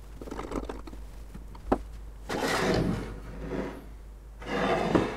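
Hand-plane parts being handled and fitted, the wooden front knob with its threaded rod and brass cap going onto the plane's base: light clicks, one sharp tick about a second and a half in, then two short scraping sounds.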